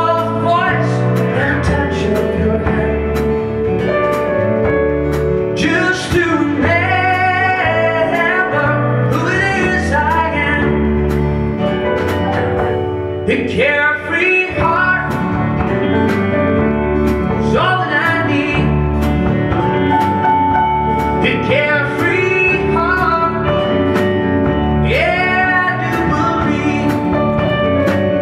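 A man singing a slow song while strumming a guitar, performed live.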